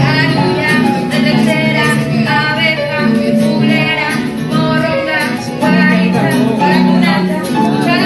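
Music with sustained chords and a melody line, likely with singing and guitar.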